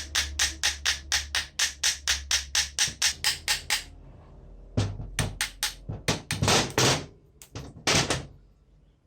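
A fast, even run of sharp tapping strikes, about five a second, that stops about four seconds in. A few longer, louder rasping sounds follow.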